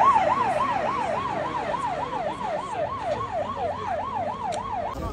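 Fire truck siren sounding a fast yelp, about four sweeps a second, each jumping up and gliding back down, growing slightly fainter and cutting off suddenly near the end.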